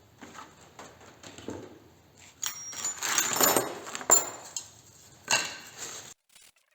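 Hard objects being handled and set down on a workbench: scattered clinks and clatter, a louder rattling stretch from about two and a half seconds in with a sharp knock about four seconds in, one more burst, then the sound cuts off abruptly.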